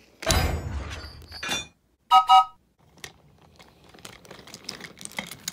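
A loud, noisy burst that dies away, then two short toots of a chime train whistle, then the light clicking rattle of a BRIO wooden toy engine and coach rolling along wooden track as they are pushed by hand.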